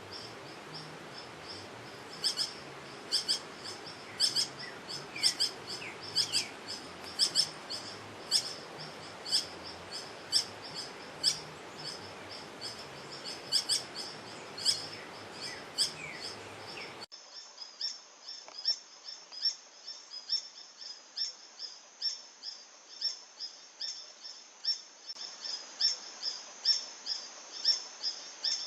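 Green hermit (Phaethornis guy) singing: short, high, thin notes repeated steadily, often in pairs about once a second. About seventeen seconds in, the background hiss suddenly drops while the song carries on.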